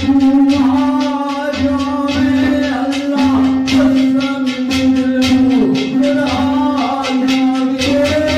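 A man singing into a microphone over a long-necked plucked lute, whose strings are plucked rapidly and evenly around a steady droning note.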